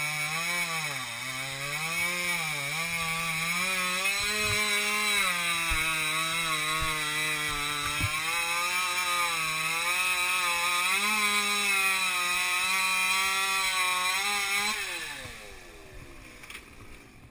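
Two-stroke chainsaw running at high revs and cutting, its pitch dipping and recovering as it bogs under load. Near the end its pitch falls away and the sound fades as the saw comes off the throttle.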